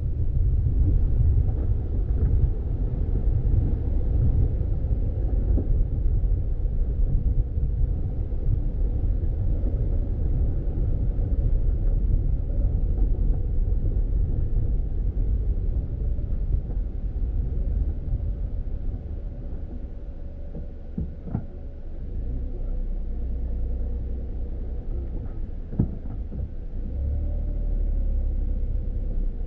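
A car driving on a dirt road: a steady low rumble of tyres and engine. It eases a little about two-thirds of the way through, with two short knocks, then builds again near the end.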